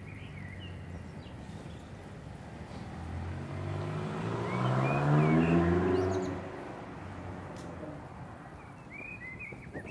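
A car passing close by, its engine rising in pitch as it accelerates and loudest about five seconds in, over steady road noise. Birds chirp briefly as it passes and again near the end.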